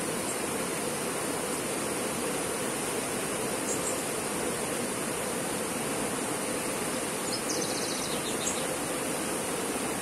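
The Santa Rosa River runs steadily over rocks in shallow rapids, a constant rushing of water. A few short high chirps come through briefly around the middle and again near the end.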